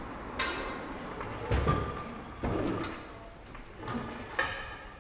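Steel wheel-clamp arms and disc clunking against each other and the table as the clamp is handled and turned over: several separate knocks, some with a short metallic ring.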